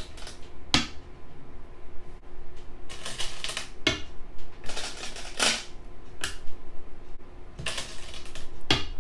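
Go stones clicking down onto a board four times, about every two and a half seconds, with stones rattling in a bowl between the clicks as each move of the game is replayed.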